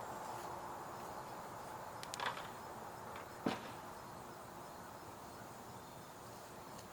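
Faint steady outdoor background with two short, sharp clicks, about two and three and a half seconds in, the second the louder.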